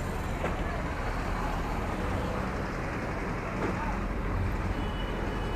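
Motorcycle engine running steadily under general street traffic noise.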